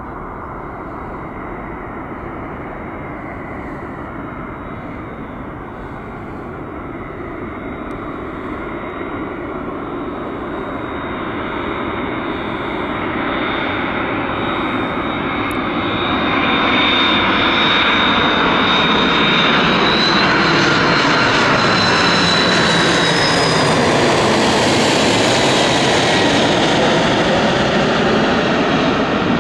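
Airbus A330-200 jet airliner on final approach with its landing gear down, its engines growing louder as it nears and loudest from about halfway through as it passes overhead. A high whine rides over the rushing jet noise and bends in pitch as the aircraft goes by.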